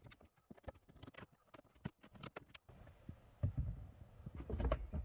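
Light, irregular clicks and taps of a screwdriver working the screws out of the plastic glove-box surround, about a dozen over the first two and a half seconds. After that come dull, low bumps of handling.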